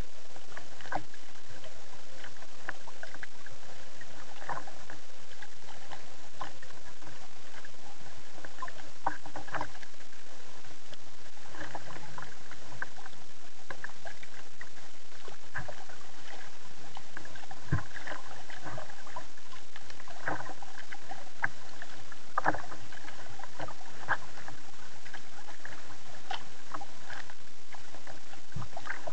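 Kayak paddle strokes: the blade dips and splashes in the water every second or two, over a steady wash of water noise.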